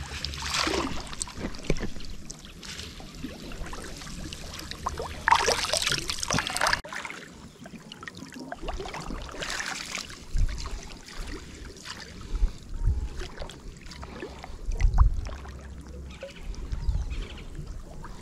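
Water splashing and trickling beside a small boat in a few separate rushes, with several dull low thumps in the second half.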